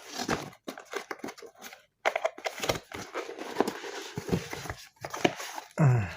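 Airgun product packaging being opened by hand: irregular rustling, crinkling and tearing with scattered small knocks.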